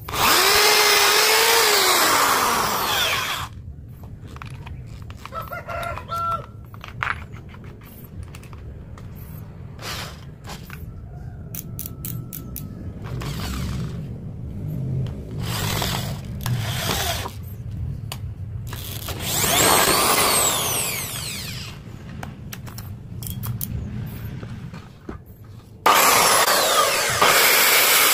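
Woodworking power tools running in three loud separate bursts: one whose motor pitch dips and recovers, one with a sweeping whine, and a steady cutting noise near the end, with quieter knocks and handling noise between them.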